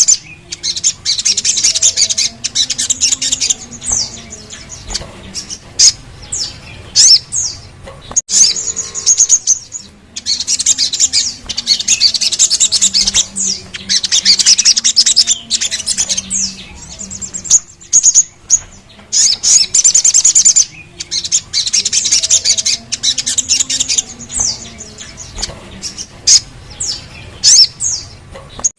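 Little spiderhunter (sogok ontong) singing: loud, very rapid high trills in repeated bursts of a couple of seconds each, broken by sharp single notes that drop quickly in pitch.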